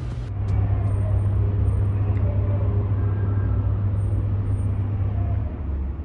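A truck's engine running close by with a low steady rumble. It swells shortly after the start and eases near the end.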